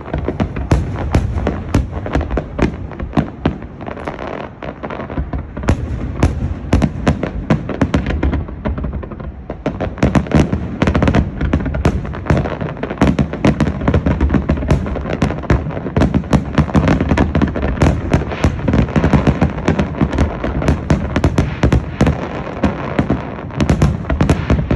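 Fireworks display: a dense, continuous barrage of bangs and crackles, easing briefly about eight seconds in, then picking up again even thicker.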